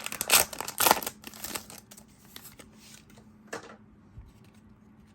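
Foil booster-pack wrapper crinkling as it is torn open and the trading cards are slid out, loudest in the first two seconds, with one more short crackle about three and a half seconds in and faint card rustles between.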